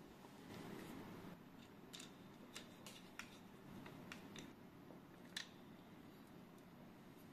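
Faint clicks and light taps from handling a screwdriver and a 3D-printed plastic bracket against a tripod's pan head while it is being fitted. There are about half a dozen scattered clicks, the sharpest a little over five seconds in, over a quiet room hum.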